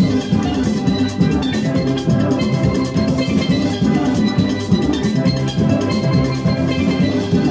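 Background music: short melodic notes over a steady run of percussion hits.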